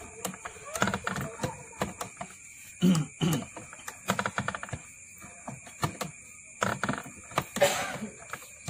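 Irregular clicking and rattling of a coil-winding jig as enamelled copper wire is wound onto a transformer coil form, with a louder rattle near the end.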